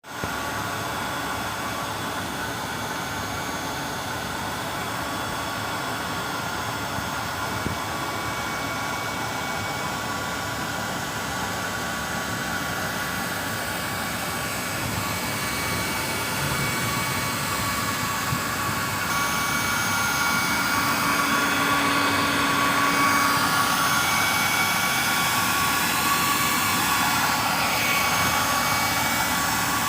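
Industrial machinery running steadily: a continuous mechanical noise with several high whining tones, growing somewhat louder past the middle.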